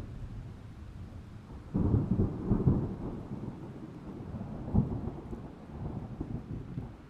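Thunder rumbling low, with a sudden loud clap about two seconds in that rolls on for about a second, another sharp crack near five seconds, then fading toward the end.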